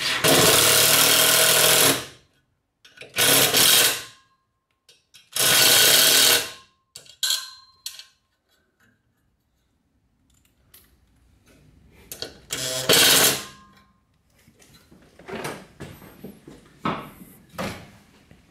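Cordless drill driving a bolt home through a metal wall bracket, running in four bursts of one to two seconds, the last after a pause of several seconds. Lighter knocks and clatter follow near the end.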